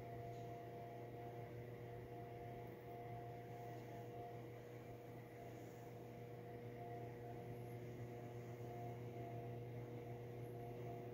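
A low, steady hum with a few faint, higher steady tones over it.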